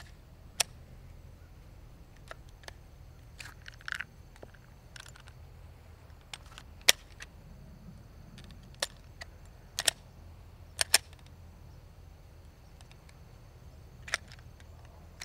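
Sharp metallic clicks and clacks at irregular intervals, with brief rustling between them, from a Glock 43X pistol and its dirt-fouled factory magazine being worked by hand. They go with rounds failing to chamber out of the gritty magazine.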